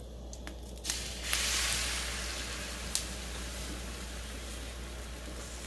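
Beaten egg poured onto a hot nonstick griddle starts sizzling about a second in: a sudden hiss that slowly eases off. Before it come a few light clicks of the wire whisk against the bowl, and there is one more click near the middle.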